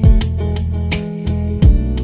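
Background music with a steady beat: regular light ticks over held notes, with heavy low drum thumps at the start and again after about a second and a half.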